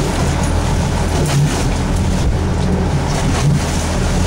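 A fishing boat's engine running steadily, with wind and sea noise over it and a few short knocks.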